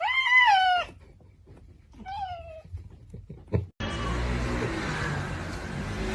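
A cat meows twice: one loud call with a falling end, then a shorter, fainter one. A knock follows, and then the sound cuts abruptly to a steady noisy background with a low hum.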